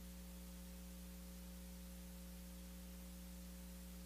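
Faint steady electrical mains hum with several overtones and a haze of hiss. This is a live audio line carrying no room sound.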